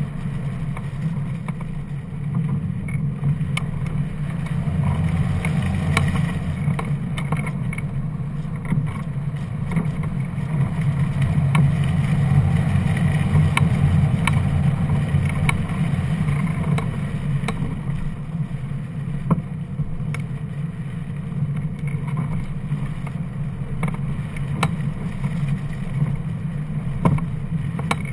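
Wind rushing over the microphone of a camera mounted on a hang glider in flight: a steady low rumble of airflow that swells a little around the middle, with a few faint ticks.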